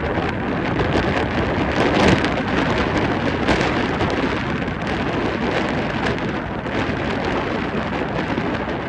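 Storm wind and rain: a loud, steady rush of noise buffeting the microphone, swelling briefly about two seconds in.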